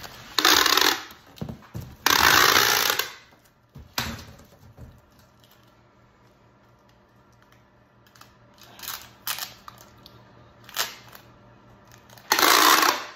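Packing tape ripping off a handheld tape gun dispenser as it is run across a cardboard box, in three loud strips: one about half a second in, a longer one of about a second starting around two seconds, and another near the end. Shorter, quieter tape pulls and handling of the dispenser fall in between.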